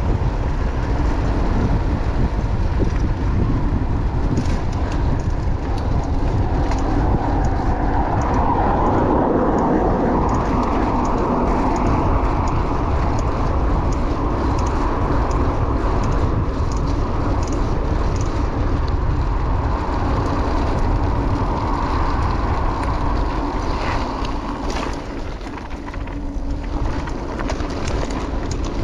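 Wind rushing over an action camera's microphone while riding a bicycle. It is a steady low rumble that eases a little about two-thirds of the way through.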